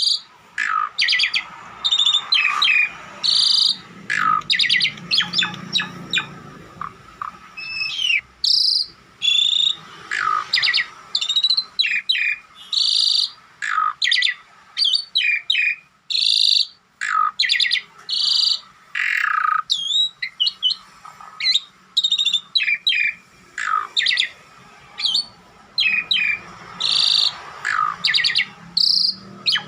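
Pet jalak starling calling and singing without pause: a fast string of loud, sharp whistles and chirps, many of them sliding up or down in pitch.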